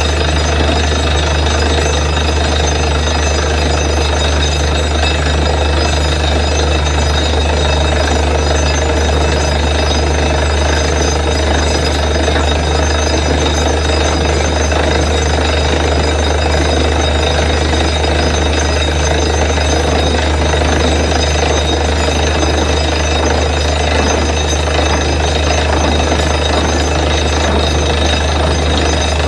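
Borewell drilling rig running: a loud, steady mechanical drone that does not change.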